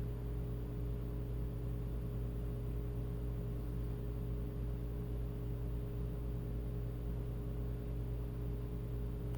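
Steady low electrical hum with a faint hiss, several constant low tones and no change throughout: the background noise of the recording setup.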